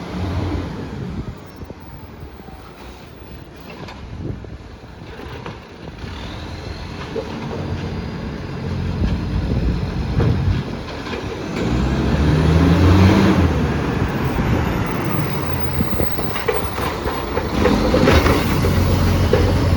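Garbage truck's diesel engine roaring through a massive exhaust leak. It is fairly quiet at first, then revs up loudly about halfway through with a rising pitch, and revs again near the end.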